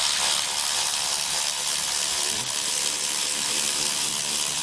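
Milwaukee cordless power tool spinning steadily, backing out a 10 mm screw that holds the plastic front bumper fascia to the radiator support.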